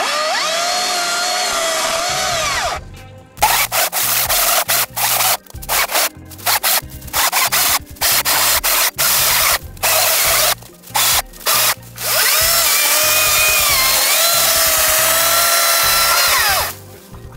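Makita MUC019G 40V cordless rear-handle chainsaw cutting the woody stems of a winged spindle (burning bush) shrub. A steady cut with the motor's whine bending in pitch under load is followed by a run of short, irregular trigger bursts on thinner stems, falling quiet between them since the battery saw does not idle. A long steady cut then stops abruptly near the end.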